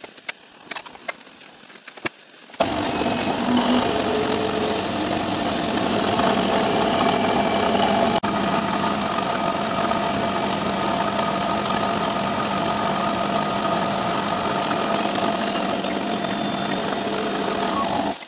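CNC milling machine's spindle running while its end mill cuts through metal plate: a steady machining whine and grind, on the final cut that frees the part from the stock. It becomes louder and fuller about two and a half seconds in.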